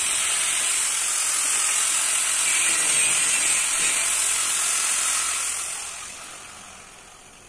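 Angle grinder with a cutting disc, cutting a steel T-profile bar: a steady, high, hissing grind. Near the end it winds down and fades away.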